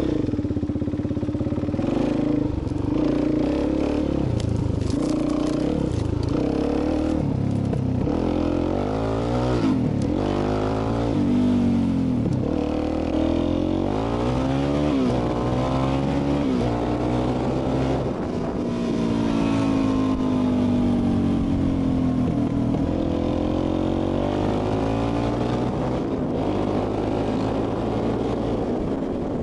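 Dual-sport motorcycle being ridden away, its engine running throughout and rising and falling in pitch again and again as it speeds up and eases off.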